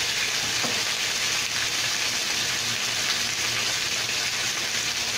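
Beef ribs and blanched green beans sizzling in a frying pan: a steady hiss.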